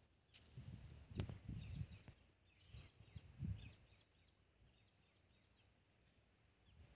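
Near silence with faint, short bird chirps in the distance and a few soft low thumps in the first half.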